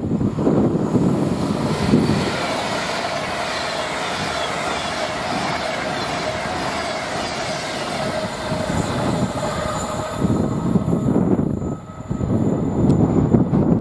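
Train passing at speed on the main line: a steady rush of wheel-on-rail noise with a faint ringing tone through it, dropping away about twelve seconds in.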